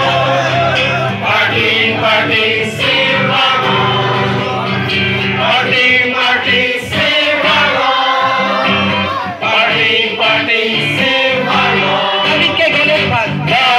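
A gospel song sung by a group of singers through a PA system over amplified backing music, with the crowd singing along.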